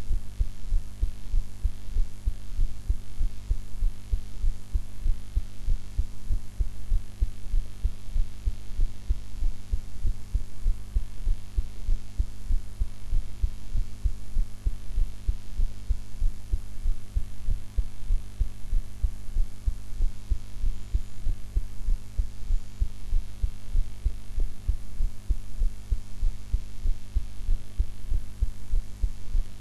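A woman's heartbeat recorded close against the chest: a steady, regular pulse of low thuds, with a steady low hum underneath.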